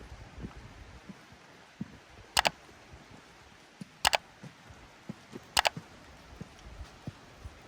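Steady light rain with scattered drop ticks, broken three times by a sharp double click about a second and a half apart, each click much louder than the rain.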